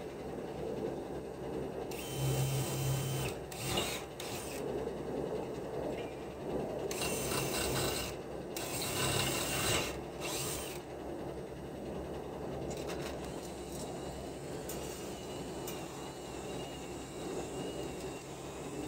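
Tool work on steel concrete formwork panels as they are fastened: several short bursts of mechanical tool noise, the first about two seconds in and the last about eleven seconds in, over a steady low background rumble.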